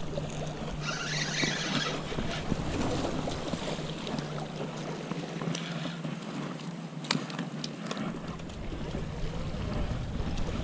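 Wind buffeting the microphone over waves washing against jetty rocks, with a brief hissing wash about a second in and a few sharp clicks around seven seconds in.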